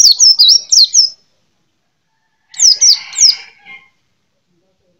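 White-eye (pleci) songbird singing: a fast run of high, falling chirped notes, a pause of over a second, then a second, shorter phrase about halfway through.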